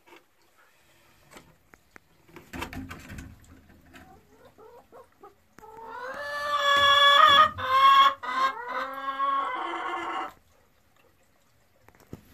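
A hen settled on her nest gives a run of loud, drawn-out calls lasting about four seconds, starting about halfway in, after a few softer rustles.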